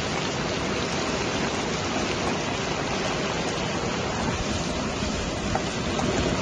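Steady sizzling hiss of corn and sardines frying in a pan on the stove.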